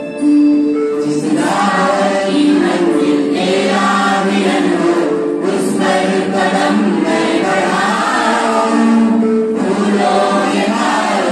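A choir of young women's and men's voices singing a song together, held notes gliding between pitches, picked up through microphones.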